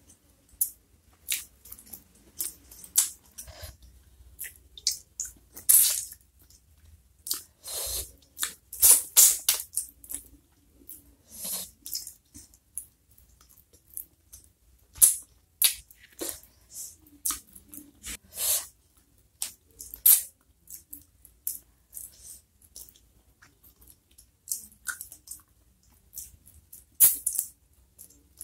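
Close-miked eating sounds: a person chewing, with wet, sharp lip smacks and mouth clicks coming irregularly and some crunching, as food is eaten by hand.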